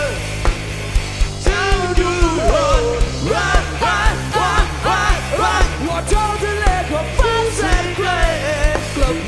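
Live band playing an instrumental break: a lead melody with wide bends and wavering held notes over a steady drum beat and bass.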